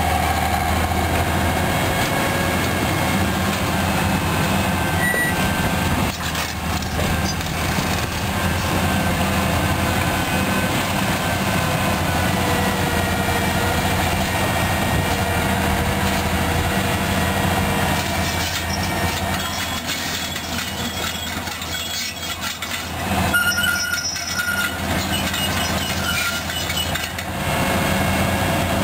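Heavy construction machinery running: the diesel engines of a SANY rotary drilling rig and a Komatsu PC200 excavator give a loud, steady low hum, with a stretch of knocking about three-quarters of the way through.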